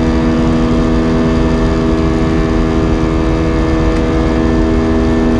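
Steady cabin drone of an Airbus A320-232 in flight, heard from a forward window seat: the rush of air and the hum of its IAE V2500 turbofans as several steady tones, unchanging throughout.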